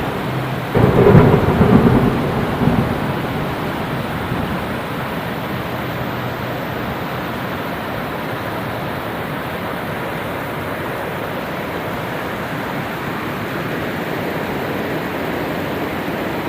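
A thunderclap rumbling about a second in and fading over a couple of seconds, over heavy rain that then pours steadily.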